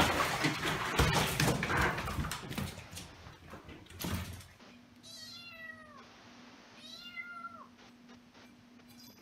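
Water splashing and thrashing as a cat scrambles out of a filled bathtub, for about the first four seconds. Then a kitten meows twice, each call short and rising then falling.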